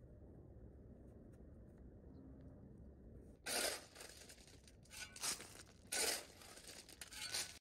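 Shovel driven into a pile of crushed rock gravel, a series of scraping crunches, about five of them, starting about halfway through.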